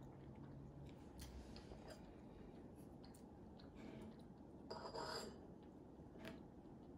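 Near silence with the faint sounds of a toddler eating rice with his fingers: a few small clicks and mouth noises, and a brief slightly louder noise about five seconds in as he pushes a handful into his mouth.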